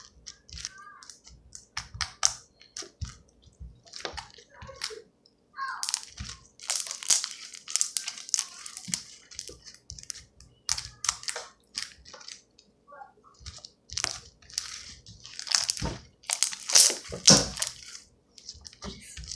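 Slime being squished, stretched and poked by hand close to the microphone: irregular wet clicks, pops and crackles, thickest about two-thirds of the way in.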